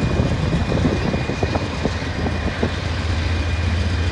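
Approaching freight train led by Norfolk Southern GE Dash 9 diesel locomotives: a steady low engine drone that grows a little louder near the end, with scattered light clicks.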